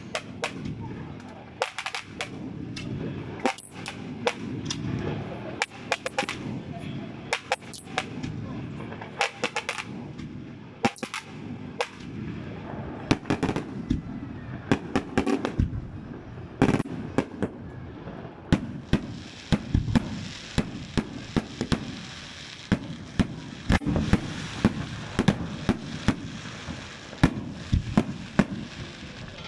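Aerial fireworks display: shells bursting in irregular succession, many sharp bangs, some in quick crackling clusters, over a continuous low rumble.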